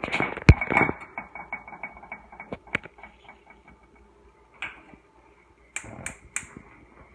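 A hot greased frying pan crackling, with scattered sharp pops and spits of fat over a faint sizzle. There is a heavy knock about half a second in.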